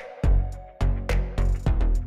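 Outro music with a steady beat and a strong bass drum, about two hits a second.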